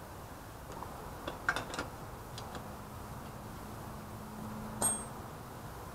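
A few light clicks and taps from hands working on a motorized bicycle: a cluster about a second and a half in, and one sharper click near the end, over a faint low hum.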